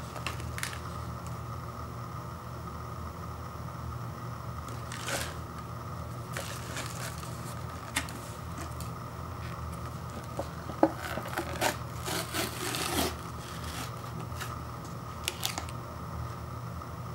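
Foil lid of a paper instant-noodle cup peeled back and plastic seasoning sachets handled, a cluster of tearing and crinkling sounds past the middle, with scattered light handling clicks before and after over a steady low hum.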